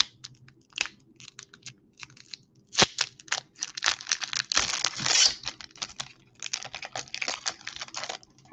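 Foil wrapper of a Pokémon trading card booster pack crinkling and being torn open by hand, in irregular crackly bursts that are loudest about four to five seconds in.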